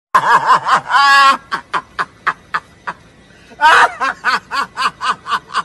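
A man laughing hard in a long run of short pulses, about four a second. The pulses die away, then break out loudly again about three and a half seconds in.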